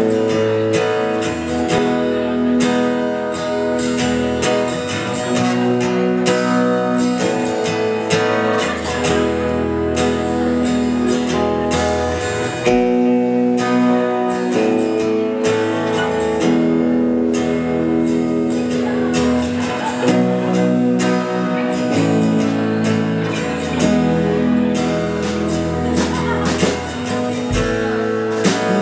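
A live band plays the instrumental intro of a song: strummed acoustic guitar up front over electric guitar and keyboard, with bass notes changing every few seconds.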